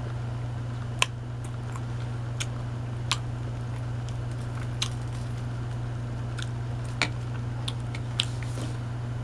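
Scattered sharp wet mouth clicks and smacks from chewing a bread roll spread with hazelnut chocolate spread, the strongest about a second in, over a steady low hum.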